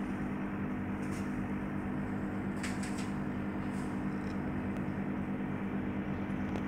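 Aquarium air pump or filter humming steadily, with a few faint light ticks.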